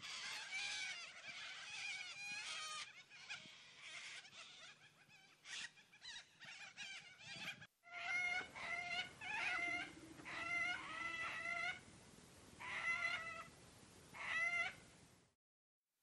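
Long-billed corellas calling. Several wavering calls overlap at first; after a brief break comes a run of separate wavering calls, each about a second long.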